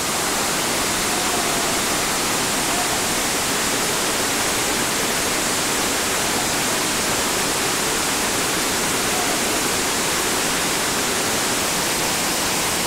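Steady, even rush of whitewater pouring through the creek's bedrock rapids.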